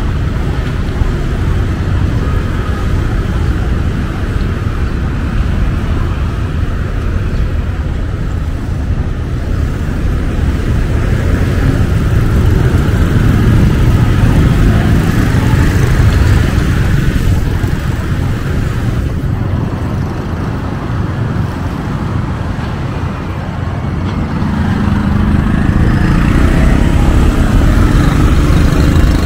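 Street traffic noise: motorbike and car engines running past in a steady low rumble, growing louder near the end.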